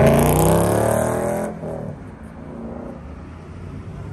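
A car accelerating hard away, its engine loud at the start and then dropping off about a second and a half in as it pulls away, leaving a faint engine rumble.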